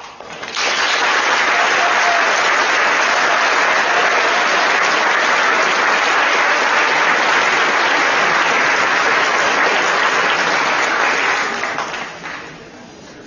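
Audience applauding. It swells in about half a second in, holds steady for about eleven seconds and dies away near the end.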